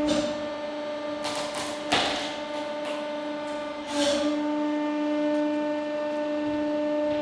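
Hydraulic press running with a steady droning hum while its conical steel spike drives into a coconut. The shell gives sharp cracks about two seconds in and again near four seconds as it splits open.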